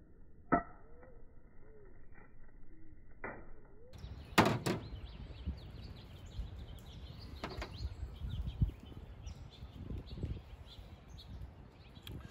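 A hand-made steel striker, made from a Nicholson file, is struck against a chunk of quartz in several sharp clicks a few seconds apart, two in quick succession about four seconds in, as flint-and-steel strikes for sparks onto char cloth. Birds chirp in the background.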